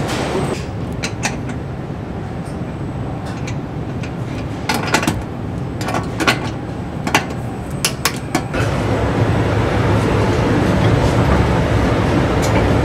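Car assembly hall ambience: a steady machinery rumble with scattered sharp metallic clicks and clanks through the middle, the rumble stepping up louder about two-thirds of the way through.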